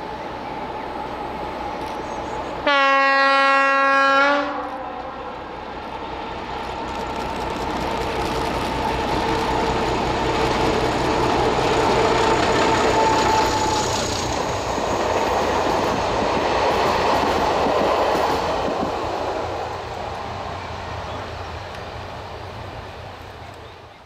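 Class 751 'Bardotka' diesel-electric locomotive sounds one horn blast of about a second and a half. Its six-cylinder ČKD diesel engine then grows louder as it approaches and passes, with a steady whine over it. The coaches then rumble past and the sound fades away.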